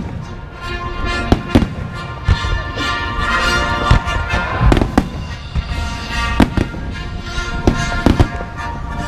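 Fireworks bursting in many sharp, irregular bangs over music played through loudspeakers: a fireworks show set to music.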